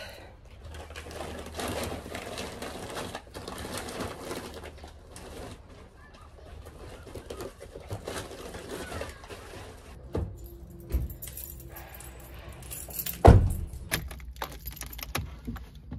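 Rustling and clinking of things being handled as plants are picked up and carried, with scattered knocks and one loud sharp thump about thirteen seconds in.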